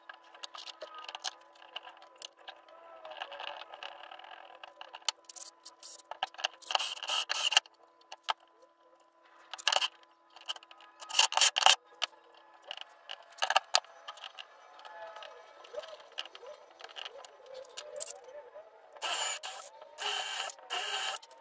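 Cordless drill driving screws into wood in several short bursts. Between them come clinks and scrapes of tools and hardware being handled.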